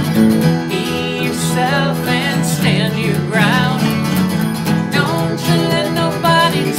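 Two Gibson acoustic guitars strummed together in a country-style song, with a woman's lead vocal coming in about a second in.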